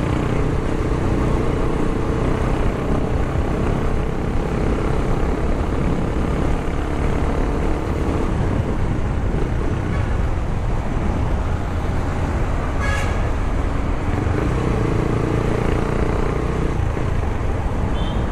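Sport motorcycle engine running at a steady cruising pace, heard with wind and road noise on a bike-mounted camera, and traffic around it. A brief high-pitched sound cuts in about two-thirds through.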